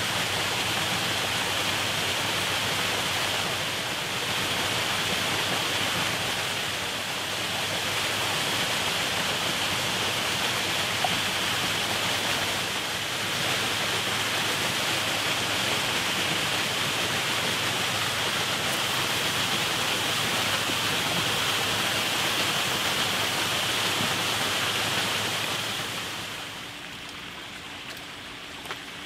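Waterfall rushing steadily, a constant hiss of falling water. Near the end it drops away to a quieter background.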